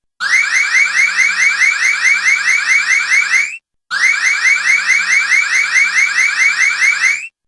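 High-pitched electronic alarm: rapid rising chirps, about four a second, in runs of about three and a half seconds broken by short silent gaps just after the start, about midway, and near the end.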